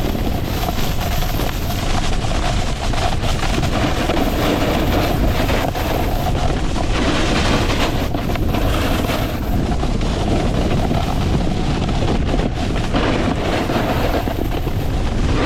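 A snowboard sliding fast over packed snow, its edge scraping with a steady hiss, mixed with wind rushing over the camera microphone. The scraping hiss swells about seven seconds in and again near the end.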